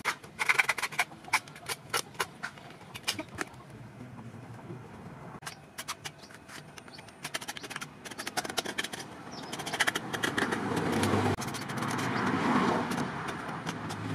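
Hacksaw cutting through a small white plastic cap: scattered clicks and taps at first, then steady rasping strokes that grow louder over the last few seconds.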